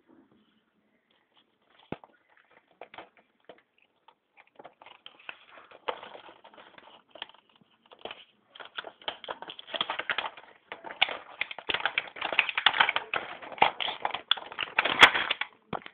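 Plastic toy packaging being handled and opened, crackling and crinkling in quick irregular bursts that grow denser and louder over the second half.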